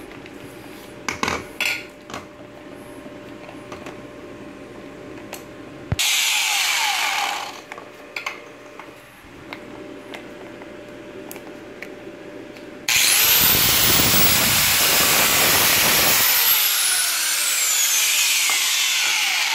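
Electric angle grinders run with no load. There is a faint steady hum at first, then a brief loud burst of a grinder at about six seconds that winds down within a second and a half. About thirteen seconds in, a grinder switches on and runs loudly and steadily at full speed until the end, with a whining tone sliding slowly downward.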